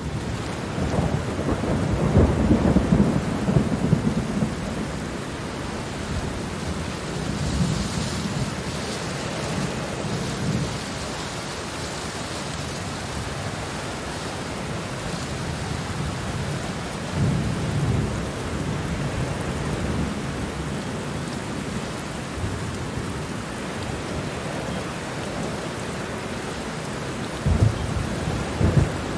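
Steady rain falling, with low rolling rumbles of thunder that swell and fade several times; the loudest rumbles come in the first few seconds and again near the end.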